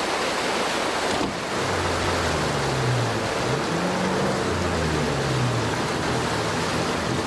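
Loud rush of a fast river in flood, with an off-road vehicle's engine revving up and down from about a second and a half in as it labours through deep water at a ford.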